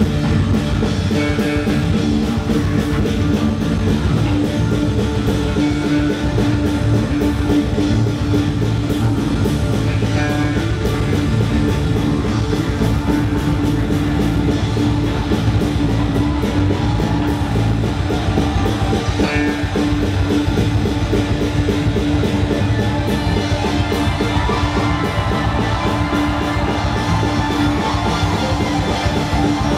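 Live rock band playing with guitars, keyboard and drum kit, with a steady beat.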